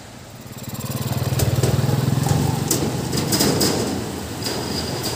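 A motorcycle engine running as the bike rides onto a suspension footbridge, getting louder about half a second in, with a string of sharp clattering knocks.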